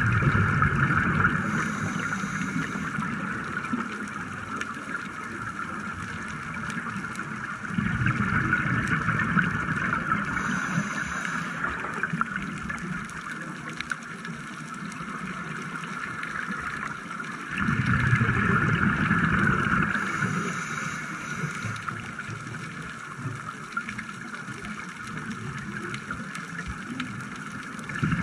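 A scuba diver breathing through a regulator underwater: exhaled bubbles gurgle and rush past in surges that come about every nine seconds. A steady underwater hiss fills the gaps between breaths.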